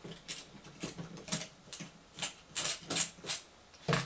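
A screwdriver turning the motor screws in a metal RC motor mount plate: a run of small, sharp metal clicks and scrapes, uneven in spacing, with a duller knock near the end.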